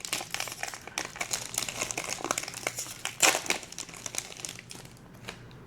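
Foil wrapper of a Topps Chrome baseball card pack crinkling as it is torn open, with a louder crackle about three seconds in, then dying down near the end.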